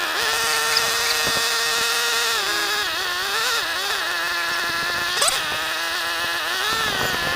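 A motor running at a steady pitch, starting abruptly. Its pitch sags and wavers twice, around the middle and again near the end, as if under changing load, then settles lower.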